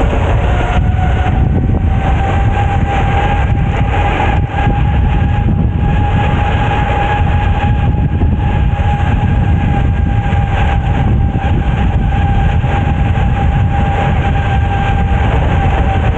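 Steady rush of wind and rolling-tyre noise as a bicycle rolls fast down a paved road, with wind buffeting the camera's microphone. A steady high whine rides over the noise.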